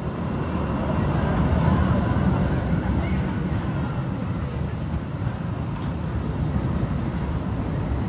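Steel roller coaster train running along its track: a steady low rumble that grows louder about a second in and holds.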